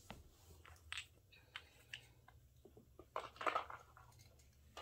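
Faint scattered clicks and rustles of small story-basket pieces (menorah candles, wooden blocks) being handled and put away, with a louder cluster of clatter a little after three seconds in.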